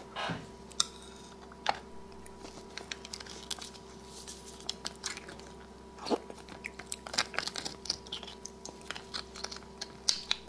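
Close-miked eating of braised beef marrow bones: a metal spoon scraping and clicking inside the bone, with wet chewing and mouth smacks. The sounds come as many short, irregular clicks.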